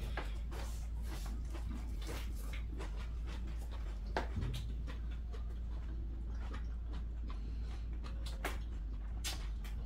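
Two people eating: chewing and mouth sounds with scattered soft clicks of spoons and chopsticks on bowls, over a steady low hum.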